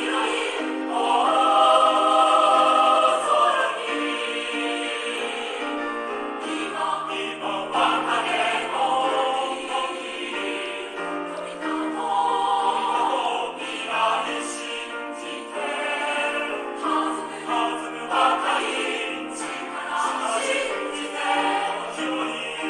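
Music: a song with choir-like singing over instrumental accompaniment.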